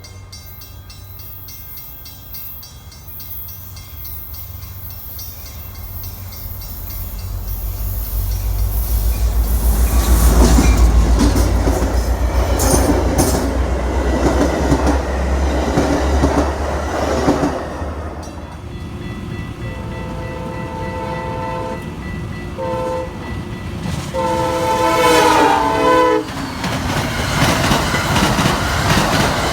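A train passes with a loud, building rumble of locomotive and wheels on rail that peaks about ten seconds in, then a Nathan K5LA five-chime air horn sounds three chord blasts, long, short and long, over the clatter of the cars on the rails.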